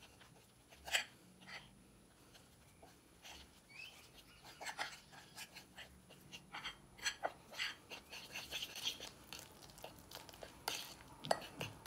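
Fork mixing mashed banana into flour on a ceramic plate: quick scrapes and clicks of the metal fork against the plate, a few at first, then a busy run of strokes for most of the rest.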